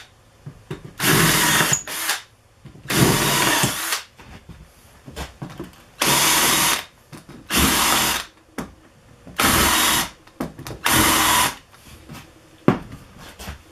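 Power drill spinning a countersink bit into wood in six short bursts, each under a second, with pauses between, cutting countersinks for bolt heads.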